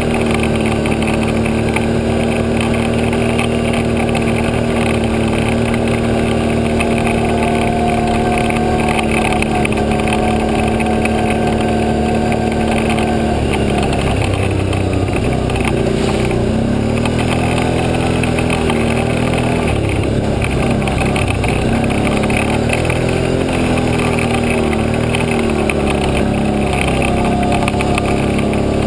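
ATV engine running as the quad rides along, holding a steady pitch for about the first half, then rising and falling repeatedly as the throttle is opened and eased.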